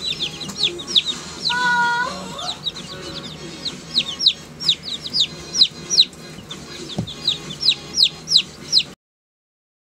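Newly hatched chicks peeping: a stream of sharp, high, falling peeps, several a second. A short held note sounds about a second and a half in, and a single soft knock near seven seconds. The sound cuts off just before the end.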